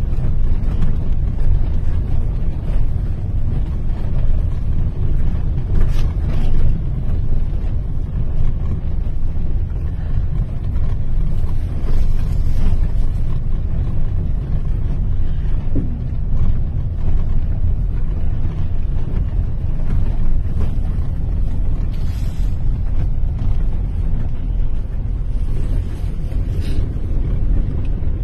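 Steady low rumble of a car driving, heard from inside the cabin: engine and tyre noise, with wind buffeting the microphone.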